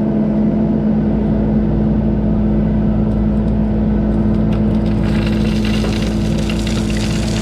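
Diesel engine of earthmoving equipment running steadily at constant speed, with some light clatter about halfway through.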